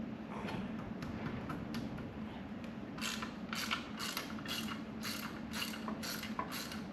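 Hand ratchet wrench clicking as it works a 9/16 bolt loose, faintly at first and then in a quick even run of about two to three clicks a second from about three seconds in.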